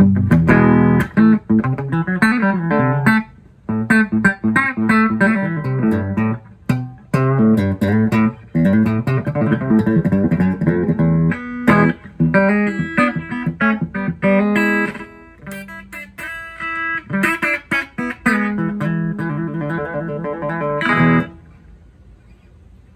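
Electric guitar played through a 1973 Fender Twin Reverb silverface tube amp and its two new Jensen speakers, during a full-power test after restoration: a run of picked single notes and chords with short breaks, stopping sharply near the end.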